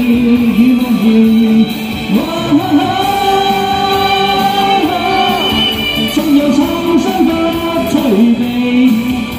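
A singer performing a classic Cantopop song over backing music, holding one long note with vibrato through the middle.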